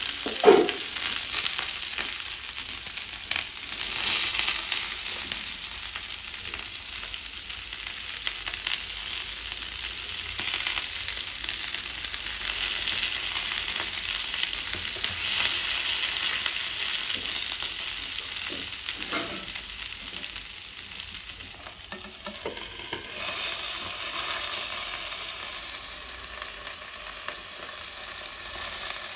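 Broccoli and red onion sizzling in a frying pan on a gas stove: a steady, high frying hiss, with a few knocks scattered through it. The hiss is a little softer over the last several seconds.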